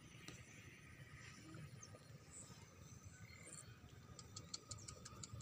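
Near silence: faint open-field ambience, with a run of faint, high-pitched ticks near the end.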